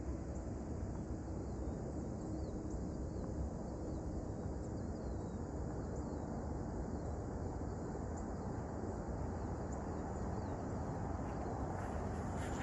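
Steady low outdoor rumble of open-air ambience, with faint high bird chirps now and then.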